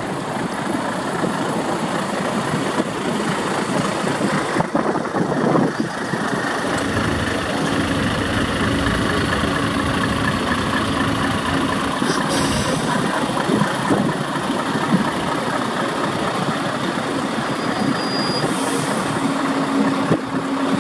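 Diesel engines of heavy tractor-unit trucks running at idle and low speed close by: a steady, dense rumble, with a low, even hum coming in partway through and again near the end.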